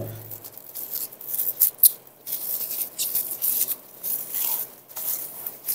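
PE plastic cling film being handled and wrapped around a foam pad, rustling and crinkling in irregular bursts.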